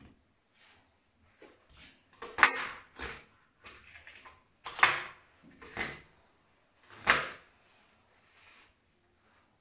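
Kitchen knife cutting an onion on a plastic cutting board: irregular knocks of the blade against the board, the three loudest about two and a half seconds apart, with lighter cuts between.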